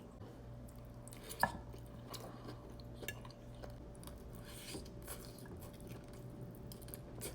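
Quiet eating sounds: a person chewing a mouthful of food, with a few light clicks of cutlery against a plate. One sharper click comes about a second and a half in.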